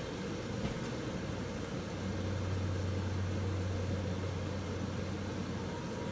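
Bacon frying in a wok under a wooden lid: a steady sizzling hiss, with a low hum underneath that grows stronger about two seconds in.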